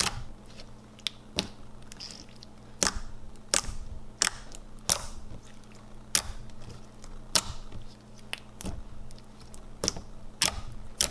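Fingers pressing and poking a thick, glossy slime, giving irregular sharp clicks and pops, roughly one every half second to a second.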